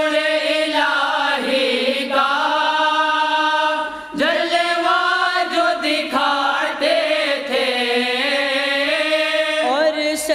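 Voices singing an Urdu devotional song in long, drawn-out notes that bend in pitch, with short breaks about one and a half, four and six seconds in.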